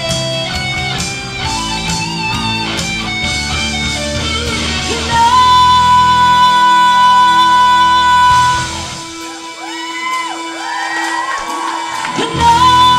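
Live rock band with electric guitar and bass guitar behind a woman's belted lead vocal. A long held high note comes in about five seconds in; then the low end drops out for a few seconds under bending melodic lines, and the full band comes back in with a loud hit near the end.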